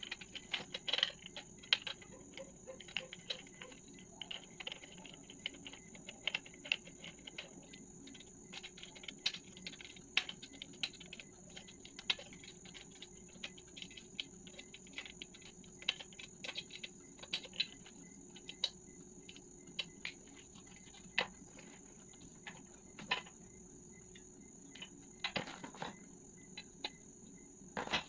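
Irregular small clicks, ticks and light metal taps from assembling a metal mirror-stand frame by hand: a screwdriver turning a screw, then a caster wheel being screwed on, with a louder clatter near the end as the frame is moved. A steady high-pitched whine runs underneath.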